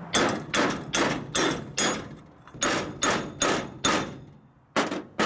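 A hammer striking metal about a dozen times in three quick runs with short pauses between, each blow ringing briefly, as a part is driven on the axle.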